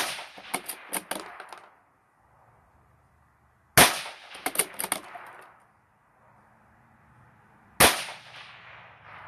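Three shots from a 17 Mach 2 rimfire rifle, about four seconds apart. Each sharp report is followed by about a second and a half of fading tail with several smaller cracks.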